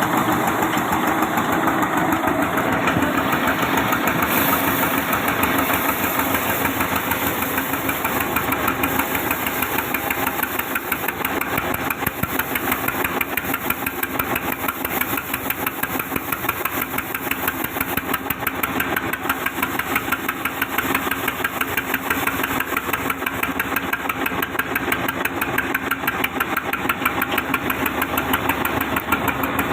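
Sawmill saw machine running steadily: a loud, dense mechanical noise with a fast, even rattle.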